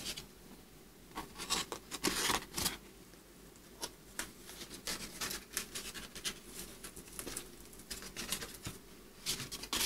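Paper plates being handled and joined at the centre with a brad: scattered light scrapes, rustles and clicks of stiff paper rubbing and tapping together, busiest between one and three seconds in and again near the end.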